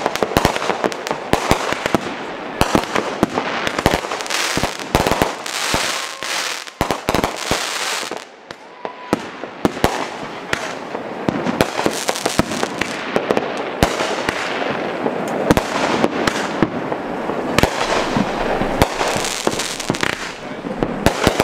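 Consumer aerial fireworks going off in quick succession: many sharp bangs and pops of bursting shells over a dense rushing hiss, with a short lull about eight seconds in.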